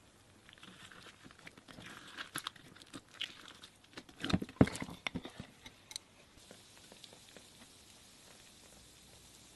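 Slime being handled by hand, giving a run of small crackling clicks and pops that are densest about four to five seconds in, then die away to a faint hiss.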